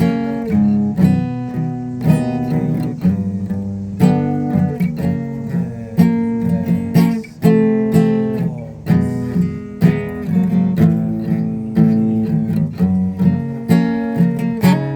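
Acoustic guitar playing strummed chords with ringing notes, an instrumental stretch with no singing.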